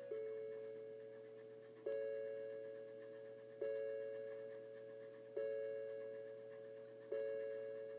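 Seiko quartz mantel clock's electronic chime, played through its small speaker, striking the hour: one bell tone about every 1.75 s, five strikes here, each dying away before the next. The tone is tinny.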